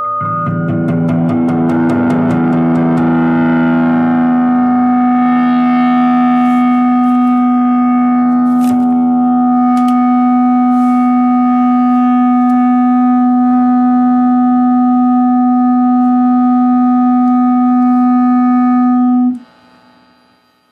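Semi-hollow electric guitar through a distorted amplifier, left on its stand feeding back: a jumble of ringing notes settles into one steady, loud held tone with many overtones. It cuts off suddenly near the end, leaving a faint amplifier hum.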